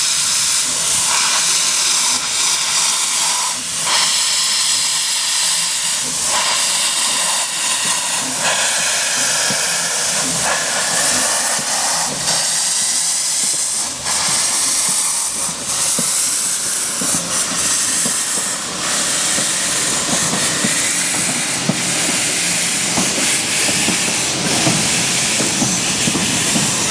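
A 4-4-0 steam locomotive hissing loudly with escaping steam, with scattered sharp knocks. A low rumble of the train rolling grows in the second half.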